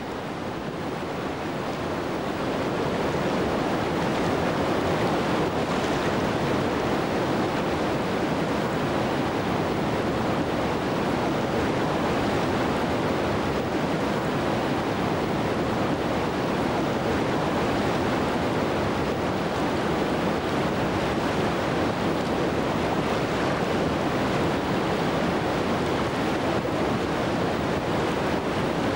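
Whitewater river rapids rushing: a dense, steady noise of churning water that builds over the first few seconds and then holds level.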